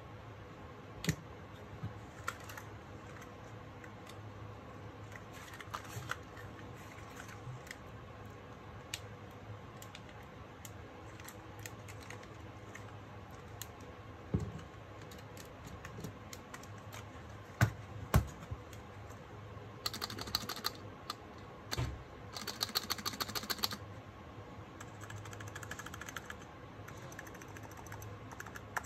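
Razer Huntsman Mini 60% keyboard with linear optical red switches being typed on: scattered key presses and a few louder knocks, then two quick runs of rapid typing about twenty seconds in. The switches are quiet, giving only soft clicks when struck firmly.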